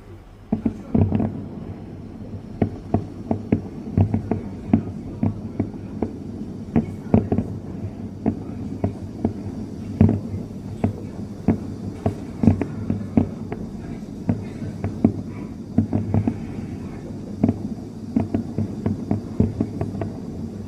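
Fireworks display: a dense, irregular run of bangs and booms, several a second, one after another.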